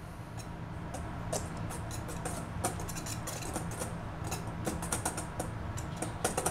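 Wire whisk stirring dry flour mix in a stainless steel bowl: a soft scratchy rustle with quick, irregular ticks of the wires against the metal, as the dry ingredients for naan dough are whisked together. A faint steady low hum sits underneath.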